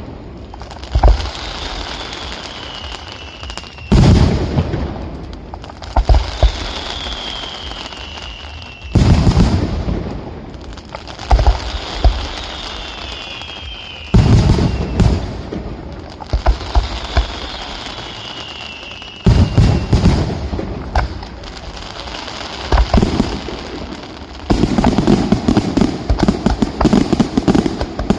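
Fireworks display: aerial shells bursting with loud bangs every few seconds, with a falling whistle after several of them. Near the end the bangs turn into a rapid, continuous run of reports.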